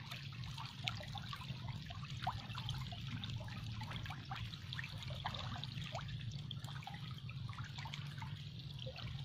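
Frog tadpoles feeding on floating feed pellets at the water's surface: a scatter of small irregular pops and drips over a faint steady low hum.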